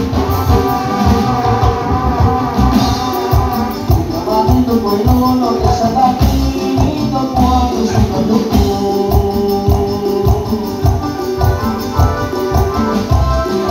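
Live band music played loud through stage speakers: keyboards carrying a melody over a steady bass beat.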